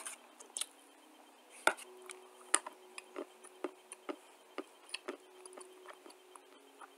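Dry clay being chewed: crisp crunches, two loud ones about two seconds in, then a steady run of crunches about twice a second.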